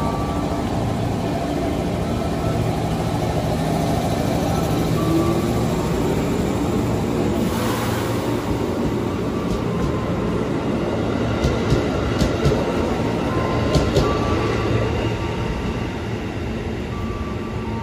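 KRL Commuter Line JR 205 series electric train running along the platform, with a steady low hum and rumble. A brief rushing noise comes about eight seconds in, and several sharp wheel clacks between about eleven and fourteen seconds in.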